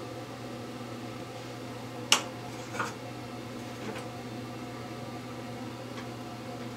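Steady low background hum with a sharp click about two seconds in, a smaller click just after, and a couple of faint ticks later, like small handling sounds.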